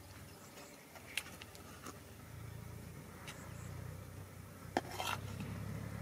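Metal serving spoon clinking and scraping against a steel pot of curry, a few sharp clicks with a cluster of them near the end. A low steady rumble sets in underneath about two seconds in.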